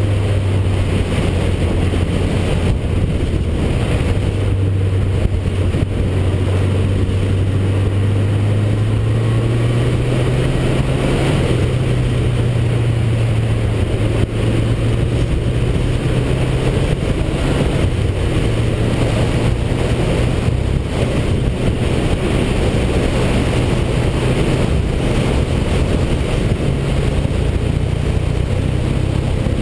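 Honda CB750's inline-four engine pulling the bike along the road, with heavy wind noise on the microphone. The engine note rises about ten seconds in as the bike picks up speed, then holds steady.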